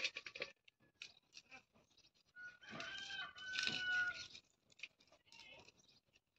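A rooster crows once, a drawn-out call of about two seconds starting roughly two and a half seconds in. Light crackling and snapping of dry garlic bulbs being broken apart by hand is heard around it.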